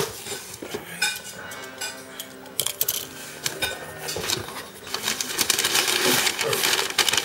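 Cardboard shipping box being opened by hand: flaps bending and scraping, with the rustle and crinkle of packing paper, getting louder and busier about five seconds in.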